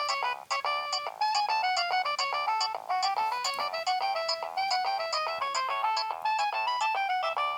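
Nokia 3120 mobile phone playing a polyphonic ringtone: a quick, bright electronic melody of short notes in several voices, with no bass.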